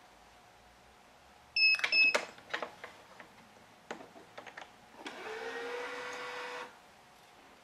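Gamma 6004 electronic stringing machine: two short electronic beeps amid sharp clicks of clamps and string handling, then scattered lighter clicks. Near the end the tensioner motor runs for about a second and a half, its pitch rising then holding steady as it pulls the string to tension.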